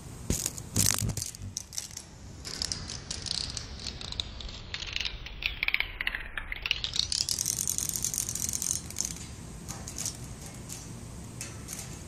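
Cicada calling: a few sharp clicking bursts at the start, then a rapid clicking buzz that glides steadily down in pitch for several seconds, sweeps quickly back up, and breaks off into a few scattered clicks.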